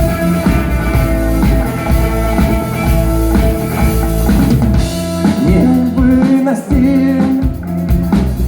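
Rock song with drum kit and guitar, a sung line gliding in about five seconds in.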